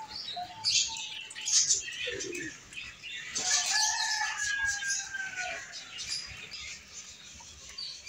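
A rooster crows once, a long drawn-out call starting about three and a half seconds in. Around it, birds chirp in short high notes.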